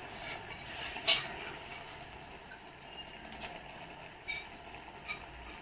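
A ladle clinking and scraping against a metal pot a few times as raw rice is stirred into tomato masala, the loudest knock about a second in, over a faint steady hiss.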